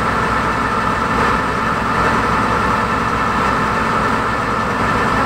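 A river ferry launch's engine running steadily under way: a constant low drone with a steady higher hum over it.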